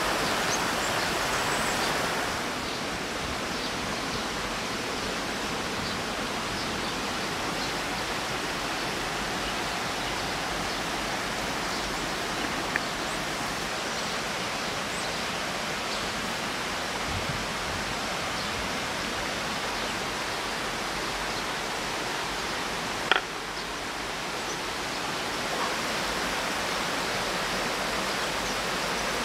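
Steady rushing of river water, a little quieter after about two seconds. A few faint clicks come through it, and one sharp knock about three-quarters of the way through.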